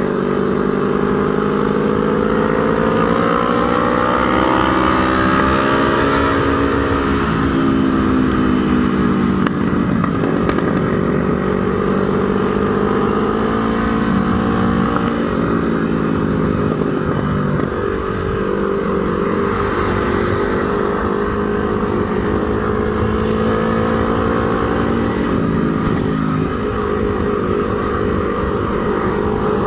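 CFMOTO NK400 motorcycle engine running under way. Its pitch climbs over the first few seconds, then drops in steps around the middle and near the end as it shifts gears, over a steady rush of wind and road noise.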